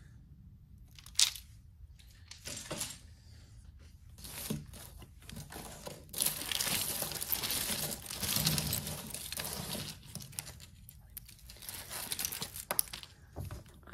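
Hands rummaging through a pile of costume jewelry: a sharp click about a second in, scattered clinks of beads and metal chains, and a few seconds of rustling and crinkling in the middle as tangled necklaces are pulled from the pile beside a plastic bag.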